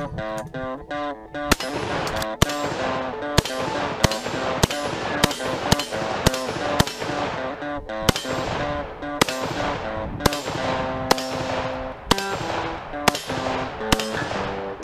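AK-pattern rifle fired in a long string of rapid semi-automatic shots, about two a second, starting a second or so in, over background music.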